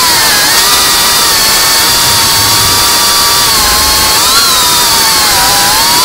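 FPV quadcopter's motors and propellers whining over a steady hiss, heard close from its onboard camera; the pitch rises briefly about four seconds in and dips just before the end as the throttle changes.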